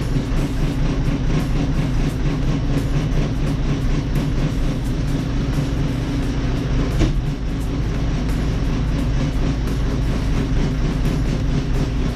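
Backhoe loader's diesel engine running steadily under load as its boom and bucket are worked, with one sharp knock about seven seconds in.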